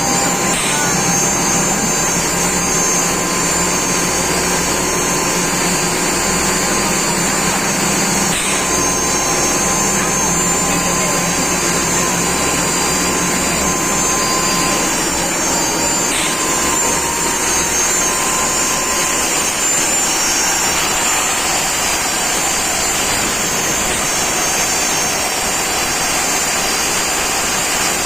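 Ultra fine grinder mill running steadily while grinding coconut sugar to powder: a loud, even rushing noise with steady high whining tones and an occasional faint tick.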